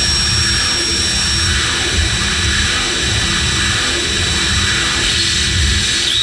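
Electronic noise soundtrack: a dense, steady hiss over a low rumble that swells and falls, with a thin high steady tone for the first second and a half.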